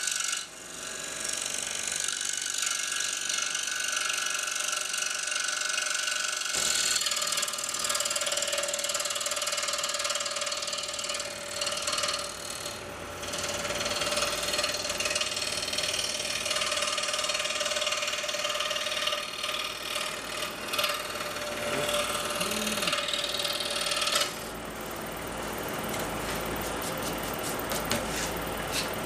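Scroll saw cutting 1/4-inch birch plywood, sped up eightfold so the blade's stroking turns into a fast, high mechanical chatter. The sound changes abruptly twice, where the sped-up footage is cut.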